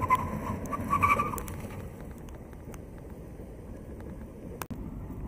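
Tesla Model S tyres squealing in short chirps under hard braking with its stock brakes, once at the start and again about a second in, over a steady low rumble. A single sharp click comes near the end.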